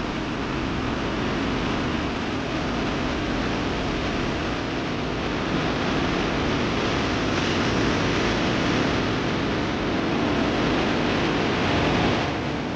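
Floodwater rushing, a steady roar of noise with no distinct events and a brief dip near the end.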